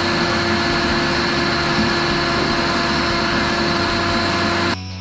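Wet vacuum running steadily with a steady whine, sucking waste water out of a clogged drain line; it cuts off abruptly near the end.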